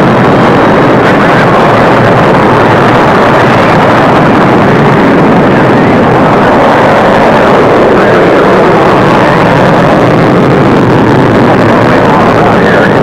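Atlas booster rocket engines firing at liftoff and during the climb: a loud, steady, unbroken rushing roar with no changes in level.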